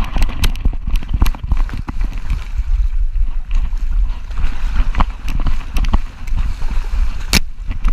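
Camera strapped to a running dog, jostling as the dog runs through shallow surf: a steady low rumble with many irregular knocks and splashing, and one sharp, loud knock near the end.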